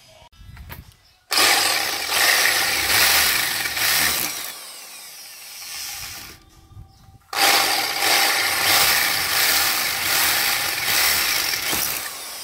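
Electric drill with an 8 mm bit running under load as it bores into the steel body panel. It runs for about five seconds, stops for about a second, then runs again to the end. The uploader admits the bits were blunt, so the bit is working hard against the metal.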